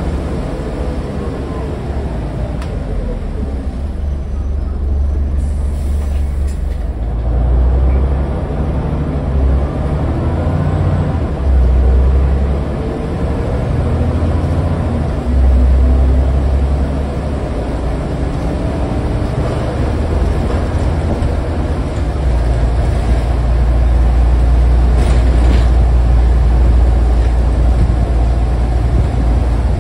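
Scania N94UD double-decker bus heard from inside the lower deck while it drives: the engine's low rumble swells and falls repeatedly as the bus pulls and changes gear, with rising and falling whines over it.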